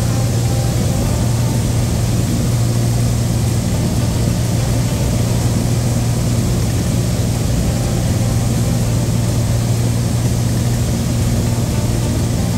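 Light airplane's propeller engine running steadily in flight: a constant low hum over a wash of engine and air noise.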